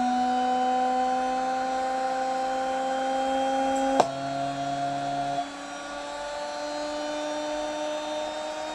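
DC drill motor spinning a CD at high speed: a steady whine that climbs slowly in pitch as the motor speeds up. A single sharp click about four seconds in, followed by a low hum for about a second and a half.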